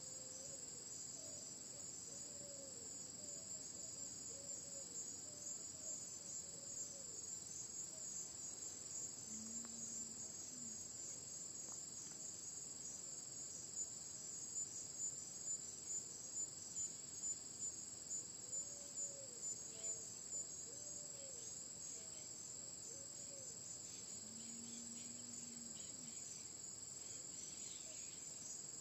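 Faint, steady high-pitched insect chorus of crickets or cicadas. A few soft low calls come twice, and a run of about a dozen soft pulses, roughly two a second, comes in the middle.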